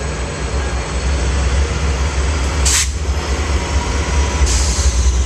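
Amtrak P42DC and F59PHI diesel locomotives pulling a passenger train away, with a steady low engine rumble. A brief hiss comes about halfway through, and another near the end.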